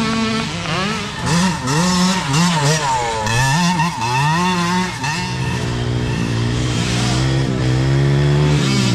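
Mini dirt bike engines revving up and down as riders accelerate and shift. From about five seconds in, one bike holds a steadier, slowly rising note.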